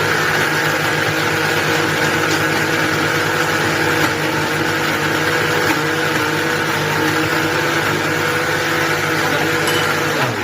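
Electric blender running steadily at full speed, blending milk, ice cream and Oreo cookies into a milkshake.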